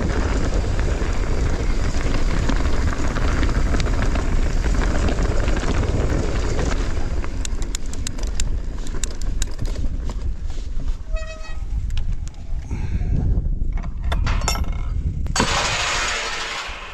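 Wind buffeting the microphone while an electric mountain bike, its motor switched off, rolls over a rough stony track, the tyres crunching. Clicks and rattles come from the bike over bumps, and there is a brief squeal about eleven seconds in.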